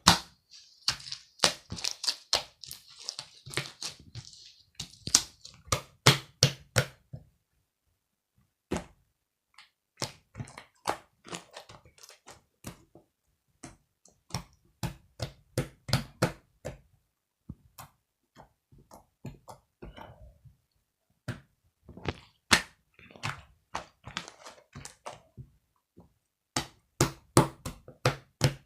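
Irregular knocks and taps, coming in quick clusters with short pauses between them.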